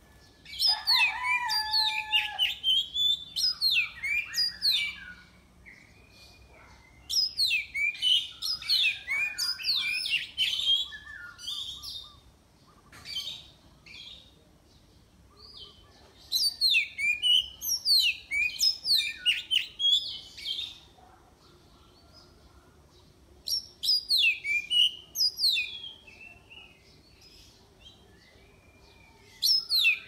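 Oriental magpie-robin singing: loud phrases of rapid, varied chirps and whistles, each a few seconds long, with pauses between them.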